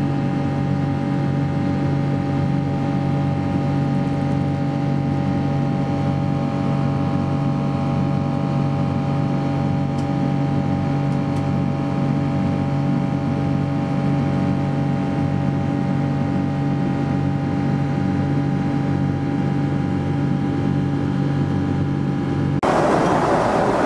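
Steady drone of a Boeing 777-200 airliner's engines, a constant hum with a set of fixed whining tones above it. About a second before the end it cuts abruptly to a louder, rougher rushing noise.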